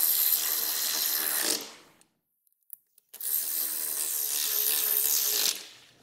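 Compact cordless screwdriver run in two bursts of about two seconds each, with a short pause between, its motor whirring steadily.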